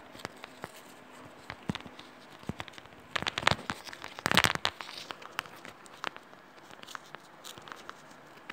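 Scattered clicks and crackles of a softened vinyl record being handled and bent by hand, with two denser runs of crackling about three and four and a half seconds in.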